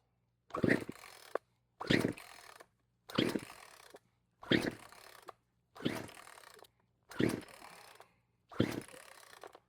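Poulan Predator 42cc chainsaw's recoil starter pulled seven times in a steady rhythm on choke, each pull a quick whirr of the rope that fades out, with the engine never catching: the saw won't start.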